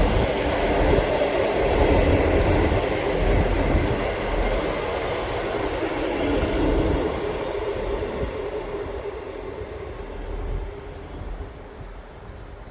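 Class 158 diesel multiple unit pulling into the platform, its rumble getting steadily quieter as it slows.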